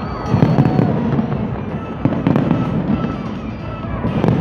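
Large fireworks display going off: a dense run of booms and crackling bursts, loudest just after the start and again near the end, with music playing underneath.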